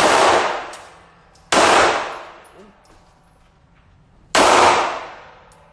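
Three gunshots at a shooting range, one at the start, one about a second and a half in and one near the end, each with a long echoing decay.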